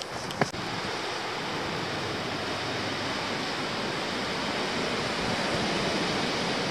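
Steady rushing wind that slowly grows louder, with two short knocks near the start.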